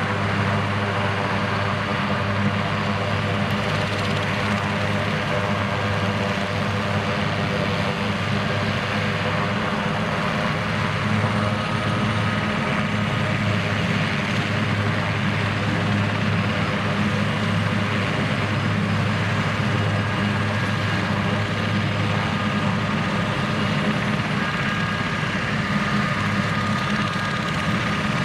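Military Super Puma-type helicopter running on the ground with its rotors turning: a steady low hum with a faint high turbine whine, unchanging throughout.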